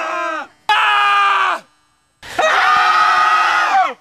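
People screaming: a scream tails off at the start, then come two long, high held screams, the second one longer, each dropping in pitch as it ends.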